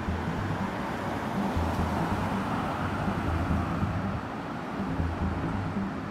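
Road traffic: a steady hiss of passing cars with an uneven low engine rumble.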